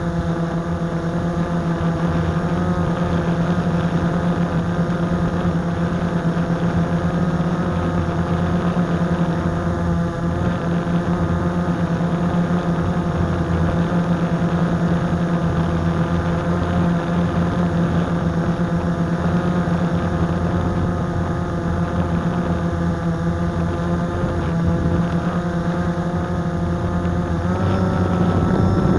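Blade 350 QX quadcopter's brushless motors and propellers humming steadily in flight, heard close up from a camera mounted on the drone. The pitch climbs slightly near the end.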